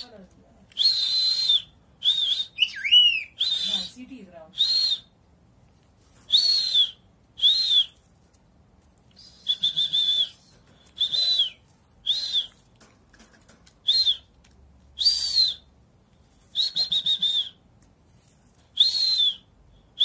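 Short, high whistle notes sounded over and over, about fourteen of them at irregular intervals, each a breathy toot lasting under a second that rises and falls slightly in pitch.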